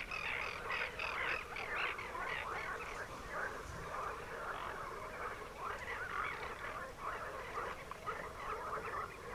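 A dense, continuous chorus of many overlapping short animal calls from a wetland.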